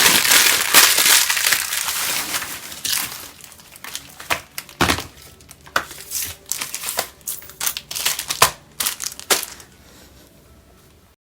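Wrapper of a Lifebuoy bar soap crinkling and being crushed in the hands. The crinkling is dense for the first few seconds, then gives way to scattered crackles and clicks, and the sound stops abruptly near the end.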